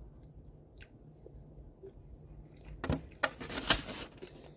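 Takeout food container and its paper wrapping being handled: about three seconds in, a short burst of crinkling and clicks.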